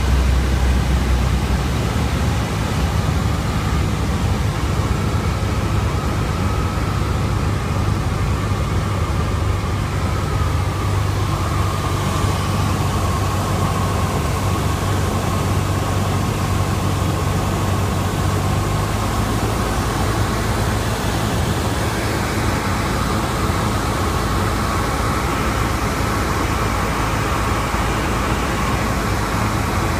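Small aircraft's engine droning steadily, heard inside the cockpit.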